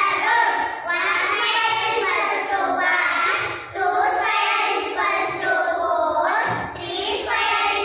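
A group of young girls chanting together in unison in a sing-song voice, phrase by phrase with short breaks between.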